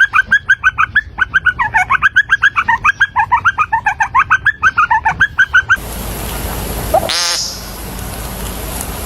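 A fast run of short, sharp chirping calls, about seven a second, lasting some five and a half seconds. It cuts off abruptly and gives way to a different animal over a steady hiss: a single short low note, then a long falling call about seven seconds in.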